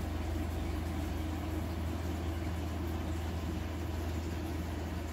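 Aquarium pump motor humming steadily, a low even hum with a faint hiss over it.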